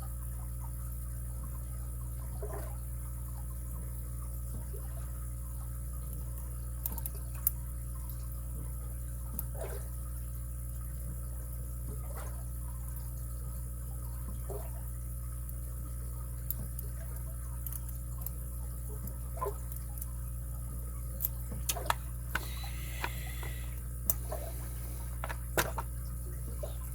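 Faint, scattered clicks and scrapes of lock picks and a tension wrench working inside a Stanley padlock's keyway, over a steady low hum. The clicks come more often near the end.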